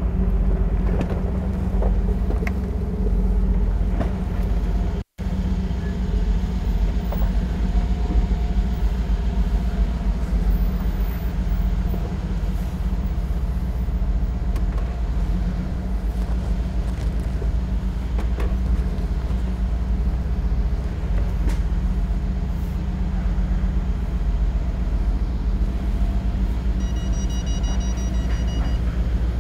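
Mercedes-AMG G63's twin-turbo V8 running with a steady low rumble as the SUV creeps forward at walking pace. A high electronic beep comes in near the end.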